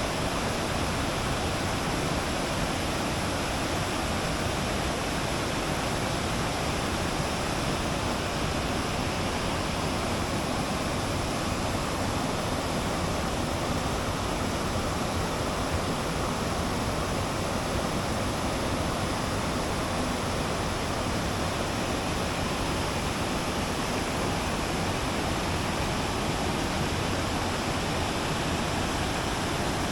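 Steady rushing water, an even, unbroken noise.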